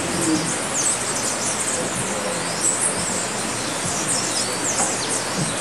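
Small birds calling around a nectar feeder: many high, thin, short chirps that slide downward, scattered throughout over a steady background hiss.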